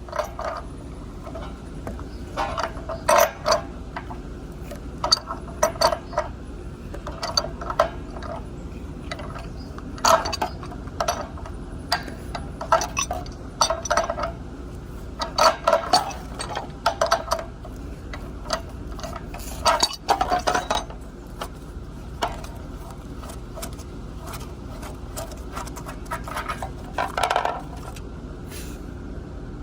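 Irregular metallic clinks and knocks of a plumbing wrench and hand tools against a gas water heater's fittings, some coming in quick clusters, over a faint steady hum.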